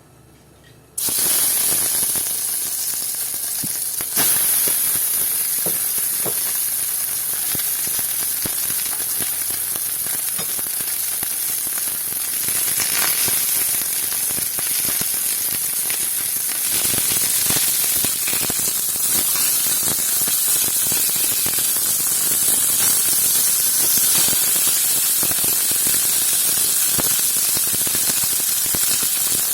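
Food sizzling in a hot pan: a steady, dense crackling hiss that starts abruptly about a second in.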